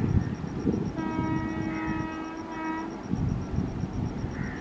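WAP-4 electric locomotive's horn sounding one steady blast of about two seconds, starting about a second in, over a low rumble.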